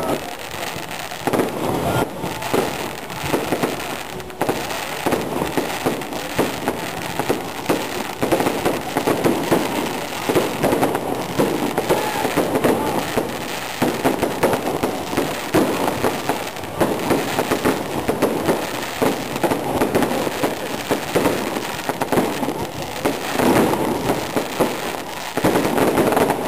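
Aerial fireworks display: a dense, continuous run of shell bursts and crackling with no real pause between them.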